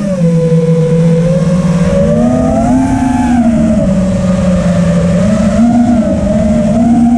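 FPV racing quadcopter's brushless motors whining at full volume, the pitch rising and falling with the throttle. It drops just after the start, climbs around the middle and rises again near the end; several close tones run together from the motors turning at slightly different speeds.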